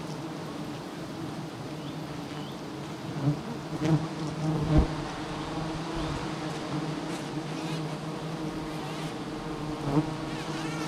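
Swarm of giant honey bees (Apis dorsata) buzzing around their exposed comb, a steady many-toned hum. A few short knocks come about three to five seconds in and one more near the end.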